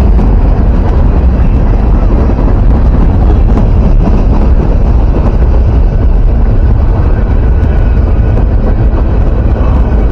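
Steady, loud wind rumble buffeting the microphone, a low, even roar with no rhythm or breaks.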